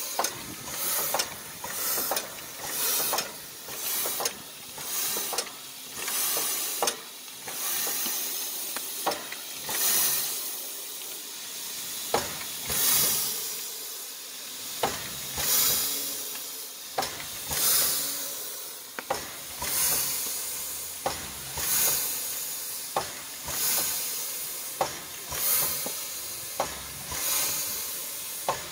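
Steam locomotive moving slowly, steam hissing out in rhythmic puffs about once a second, spacing out to about one every two seconds later, with sharp metallic clicks between the puffs.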